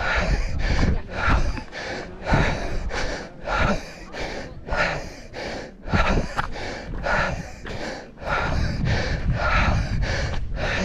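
A person breathing hard in quick, regular breaths, with wind buffeting the microphone in a steady low rumble.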